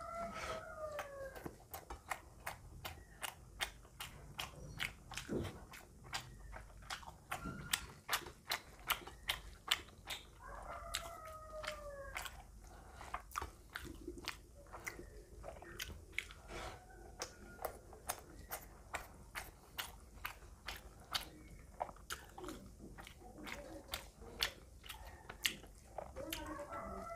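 Close-miked wet chewing and lip-smacking from eating rice and fish by hand: a steady run of sharp mouth clicks, about two or three a second. A faint call with a gliding pitch sounds in the background a few times.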